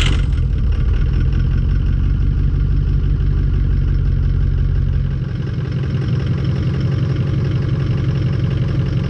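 A 2004 Ford F-250's 6.0-litre Power Stroke V8 turbo-diesel idling steadily just after a cold start at about 20 °F, block heater plugged in. It started right up, and its note settles slightly about five seconds in.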